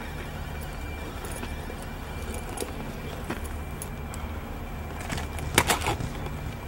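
Small clicks and light rattles of gear being handled, like keys or equipment clinking, over a steady low hum; a cluster of louder clicks comes about five and a half seconds in.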